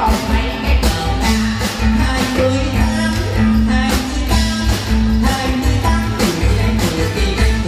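Live stage music: a woman singing into a microphone over a band with a steady drum beat, heavy bass and guitar.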